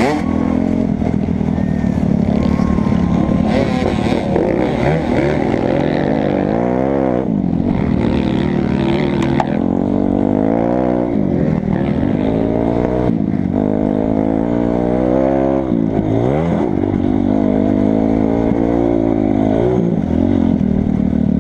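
2008 Kawasaki 250 dirt bike engine revving hard under race riding, its pitch dropping and climbing again several times as the rider shifts, brakes and accelerates, with a clatter of the chassis over the rough track.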